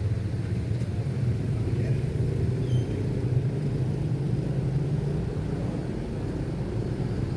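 Steady low rumble of street traffic, with engines running.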